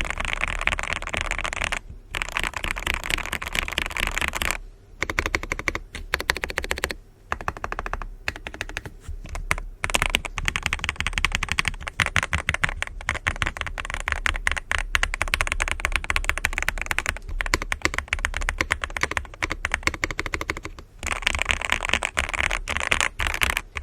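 Fast, continuous typing on a Zoom65 v2 mechanical keyboard with factory-lubed Aqua King linear switches, an aluminium plate, a foam-modded case and clone GMK keycaps: a dense run of key presses broken by a few brief pauses.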